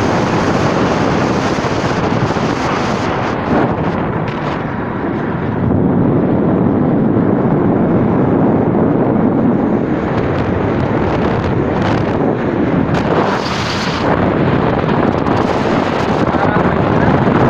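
Wind buffeting the microphone over the steady noise of a moving vehicle on the road.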